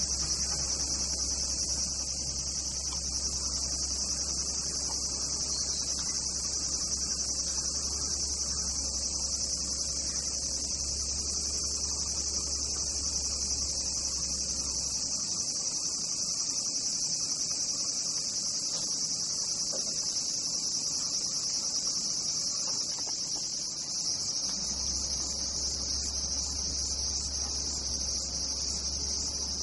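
Steady high-pitched chorus of singing insects, with a low hum underneath that stops for about ten seconds in the middle.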